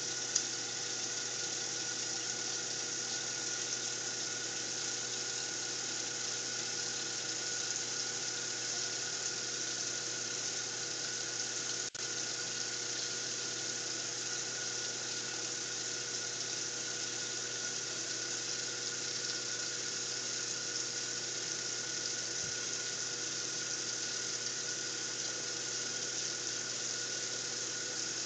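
Bathroom faucet running a thin stream of cold water into the sink: a steady hiss with a steady hum beneath it. A sharp click or two right at the start.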